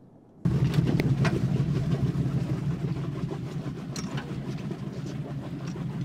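A boat's engine running steadily, starting suddenly about half a second in, with a few light clicks and knocks over it.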